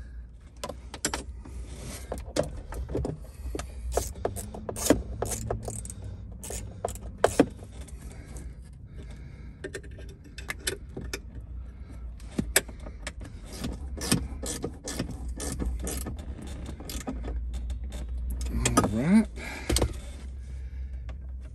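Scattered metal clicks, clinks and knocks as a Jeep Wrangler's steel under-dash support bar is handled and fitted into place by its locating tabs, over a low steady hum.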